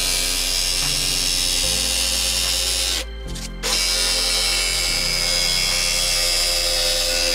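Cordless power tool cutting into the sheet steel of the van's rear door panel, running in two long stretches with a short break about three seconds in.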